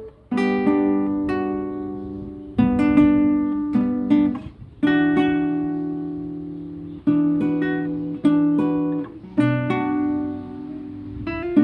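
Guitar music: chords strummed and left to ring out, a new chord every second or two.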